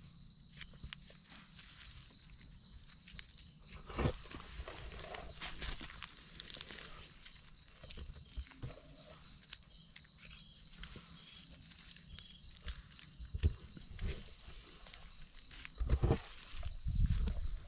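Dry leaf litter rustling and crunching as gloved hands pick mushrooms from it, with a few louder crunches or thumps, the heaviest near the end. A steady high insect trill, like crickets, runs underneath.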